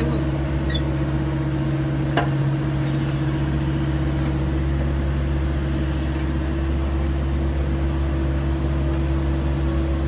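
Diesel engines of an excavator and a wheel loader running steadily, a constant low drone, with two brief hisses about three and six seconds in.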